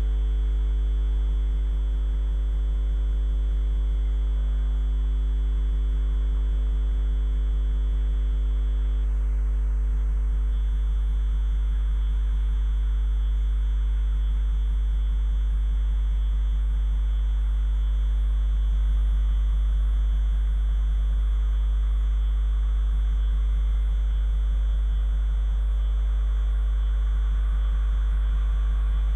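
A loud, steady low hum with a faint fast pulse underneath, unchanging throughout.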